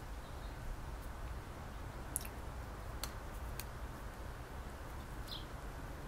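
Steady low background rumble with a few faint sharp clicks in the middle and one brief high chirp near the end.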